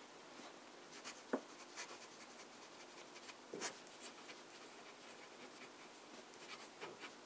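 Ratnam & Sons No. 12 fountain pen nib scratching faintly across Rhodia paper while writing, with a couple of light ticks. The nib is a little scratchy.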